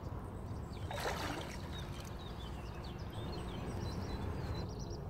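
Lake water sloshing and splashing as a wading angler handles a carp sling in the water, with a louder splash about a second in. Birds chirp faintly.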